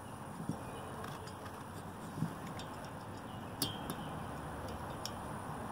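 A few light metallic clicks and ticks as a small screwdriver and the chainsaw cylinder knock against the piston rings while the rings are squeezed into the bore, the sharpest click a little past halfway, over a steady background rumble.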